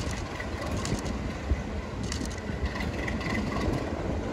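Class 37 diesel-electric locomotive's English Electric V12 engine rumbling steadily as the locomotive approaches slowly along the track.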